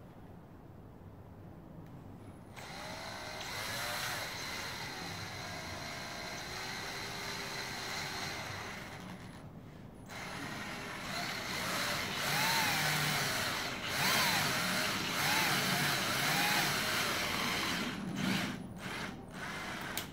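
Cordless drill running into wooden slats in two long stretches, about 2 s and 10 s in, its pitch rising and falling as the trigger and load change; a few sharp clicks near the end.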